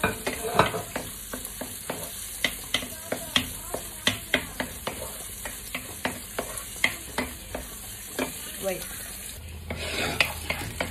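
Garlic sizzling in hot oil in a nonstick wok while a wooden utensil stirs it, tapping and scraping the pan in irregular clicks. The sizzle cuts off about a second before the end, leaving a low hum.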